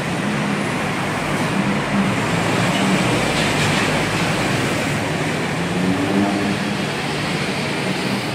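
Steady road traffic noise from a busy street: car and motorbike engines and tyres blending into a continuous rush.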